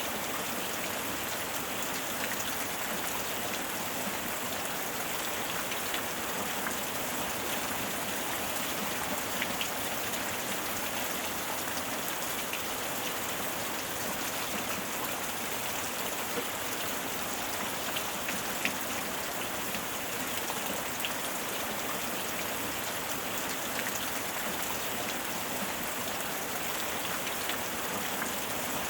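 Steady heavy rain falling, an even hiss with scattered individual drops ticking on a surface.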